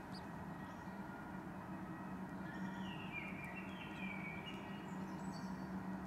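Newly hatched pigeon squab peeping: a few thin, falling cheeps in quick succession around the middle, over a steady low hum.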